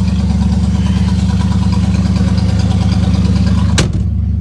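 Car engine idling steadily, prone to stalling at idle. A single sharp clunk comes near the end.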